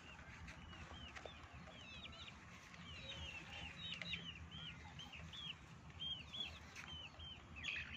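Chickens in a backyard coop peeping: a steady run of short, high chirps, several a second, with a louder cluster near the end.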